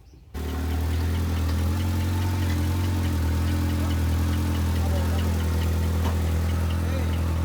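A car-audio sound wall (paredão) switched on and playing a loud, deep, steady bass-heavy sound. It starts abruptly about a third of a second in, and its upper tones shift in pitch a few times.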